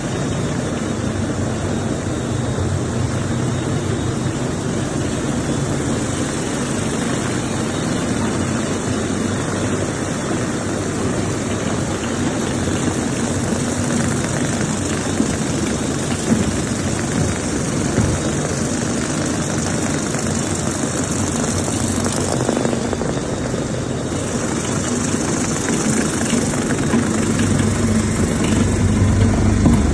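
Industrial high-speed heater-cooler mixer plant running: a steady mechanical drone with a low hum, growing a little louder near the end.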